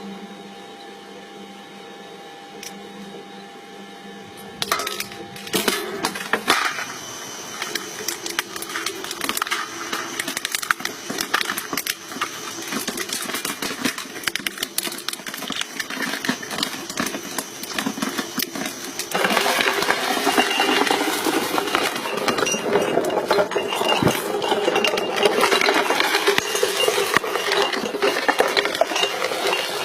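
A hydraulic crushing machine running with a steady hum, then crushing an object with a dense, continuous crackling and snapping that grows louder about two-thirds of the way in.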